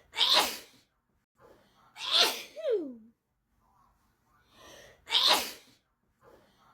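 A person sneezing in a fit: three sharp sneezes, each after a short breath in, the second trailing off in a falling voiced sound, with another breath starting near the end.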